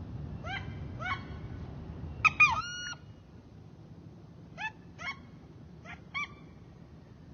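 Wood ducks giving their rising, squealing "oo-eek" calls, about seven in all, the loudest two or three seconds in. A low background rumble drops away about three seconds in.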